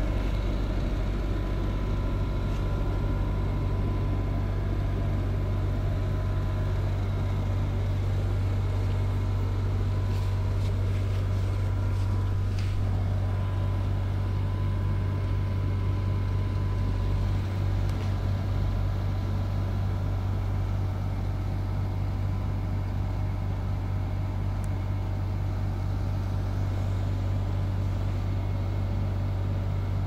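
Window air conditioner running: a steady low hum under an even rush of fan air, with a faint high tone held throughout.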